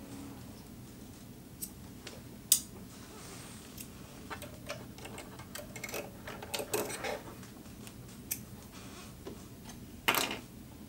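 Scattered light clicks and taps from hands working the threading of a Singer HD6360M sewing machine. A sharp click comes about two and a half seconds in, several small clicks follow, and a louder brief scrape comes near the end.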